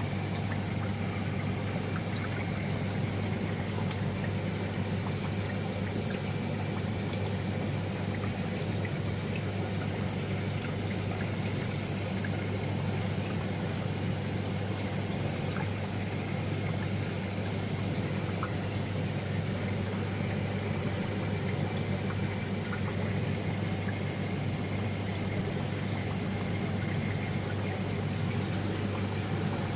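Saltwater aquarium's water circulation running: a steady flow and trickle of water over a constant low pump hum.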